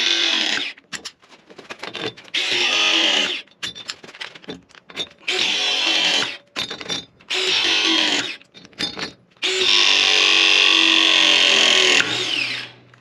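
Ridgid ProPress 241 battery press tool's motor running in several short runs of about a second each, then a longer run of about two seconds near the end that cuts off suddenly, as its 3/4" jaw presses copper press fittings.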